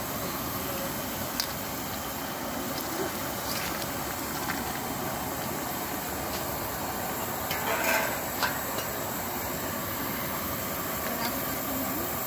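Steady hiss of a pressure LPG burner under a large pan of fish curry that is boiling hard, with a few small clicks and knocks near the middle.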